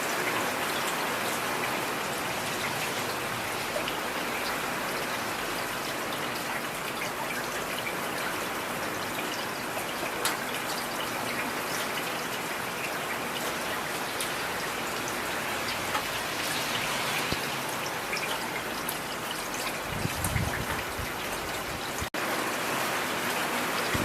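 Heavy rain falling steadily, a dense even patter of drops. About 20 s in a brief low rumble swells under the rain, and about two seconds later the sound drops out for a split second.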